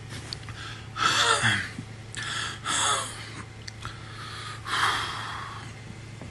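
Three harsh, breathy bursts from a person's throat, at about one, two and a half, and five seconds in. The first trails off in a falling groan. A low steady hum runs underneath.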